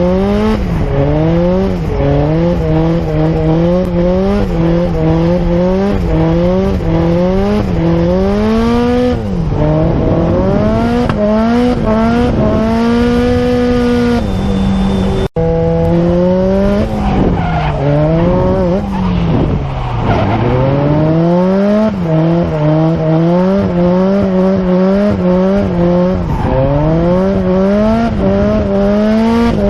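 A drift car's engine revving hard with tyre squeal, its pitch climbing and falling back again and again, about once a second. A brief cut in the sound about fifteen seconds in.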